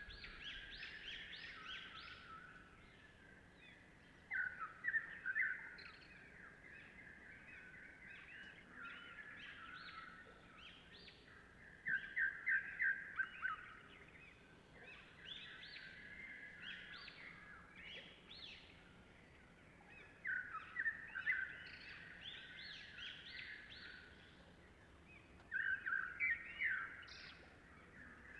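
Birds singing: loud bursts of rapid chirping notes recur every several seconds, with softer chirping in between.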